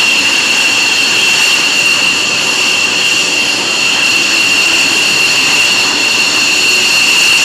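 F-16 fighter jet engine running at idle as the jet taxis, a loud steady high-pitched whine over a rushing roar.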